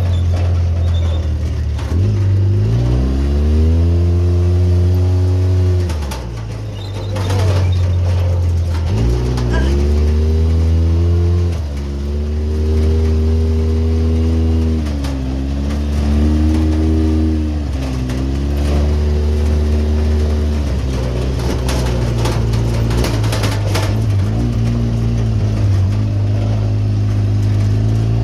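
Motor vehicle engine running under load, its pitch rising and dropping several times as it accelerates and eases off, then running steadier in the later part.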